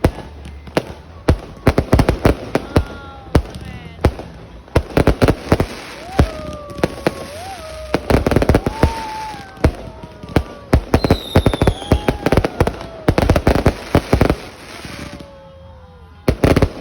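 Aerial fireworks going off in a rapid barrage of loud bangs and crackles, thinning to a short lull near the end before the bangs start again.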